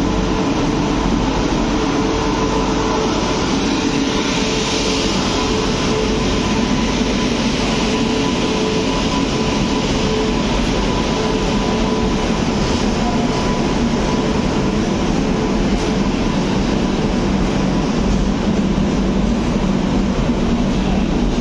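Electric-locomotive-hauled passenger train rolling slowly into a platform, its WAP-7 locomotive and then its LHB coaches passing close by with a steady rumble of wheels on rail. A faint steady hum sits over it through the first half.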